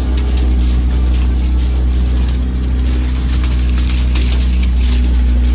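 A tour boat's engine running steadily with a deep, even hum, and short scratchy rustles on top, like reeds brushing along the boat's side.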